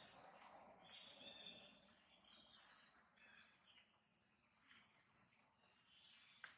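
Faint outdoor ambience: insects chirring in short high-pitched spells every couple of seconds, with scattered bird calls.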